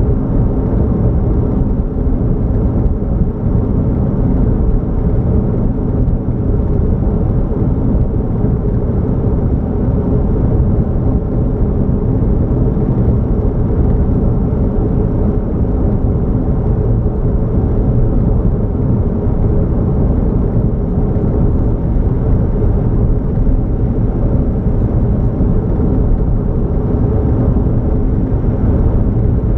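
Steady low rumble of a vehicle driving along, engine and road noise.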